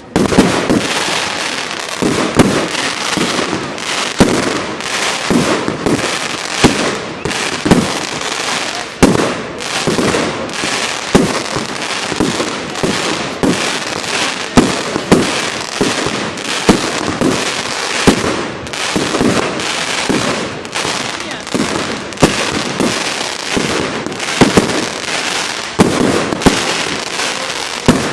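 Many fireworks and firecrackers going off at once: a steady crackle with sharp bangs several times a second, the loudest every second or two.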